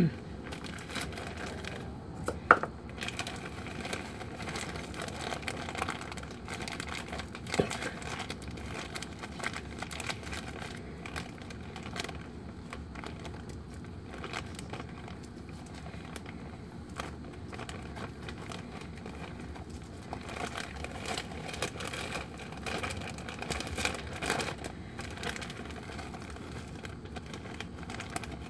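Plastic bag of light brown sugar crinkling and rustling as it is handled and opened, in a steady run of small irregular crackles. A sharp knock comes a couple of seconds in, and a smaller one a few seconds later.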